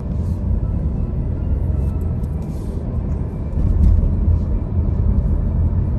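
Steady low rumble of road and engine noise inside a moving car's cabin at highway speed, rising slightly about three and a half seconds in.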